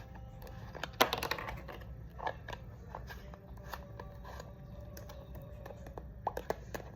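Slime being squished and poked by hand, giving a string of small clicks and wet crackles, with a denser crackling burst about a second in.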